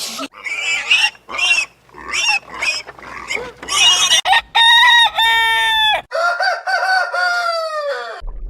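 Chickens clucking and squawking in short calls, then a rooster crowing in long, loud drawn-out notes, the last one falling in pitch before it cuts off.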